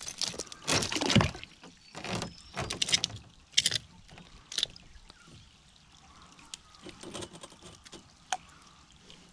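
Oyster-encrusted rocks being handled in shallow water: several sharp knocks and splashes of rock and shell in the first five seconds, then quieter water trickling and a few small clicks.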